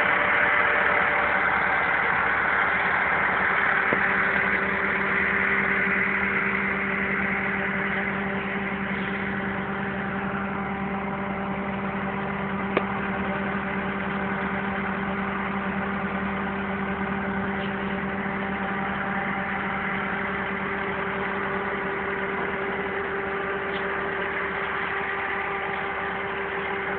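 Massey Ferguson 385 tractor's four-cylinder diesel engine running at a steady speed, a little louder for the first few seconds. A single short click sounds about halfway through.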